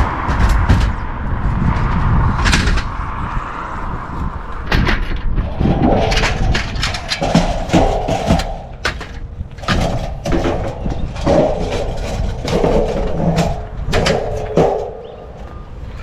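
A car driving, heard with low road rumble, and many sharp knocks and thumps running through it. From about six seconds in there are also broken, muffled mid-pitched tones.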